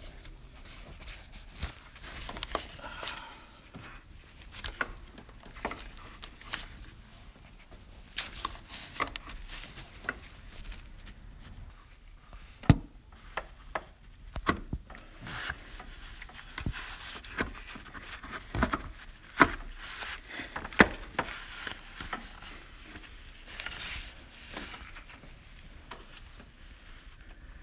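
Hands working a rubber coolant hose onto its plastic quick-disconnect fitting in a car's engine bay: irregular rubbing and scraping with scattered clicks and knocks, two of them sharper, about halfway through and about three quarters through.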